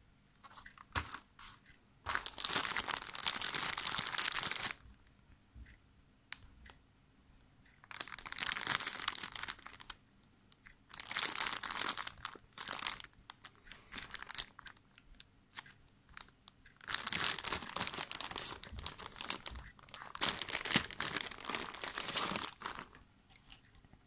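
Clear plastic packaging bag crinkling and rustling as hands handle and unwrap it, in several bursts of a few seconds each with short pauses between.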